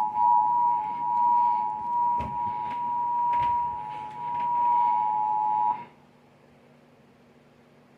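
Emergency Alert System attention signal: two steady tones sounding together (853 and 960 Hz), with a couple of short knocks over it. It cuts off suddenly about six seconds in, leaving only faint hiss.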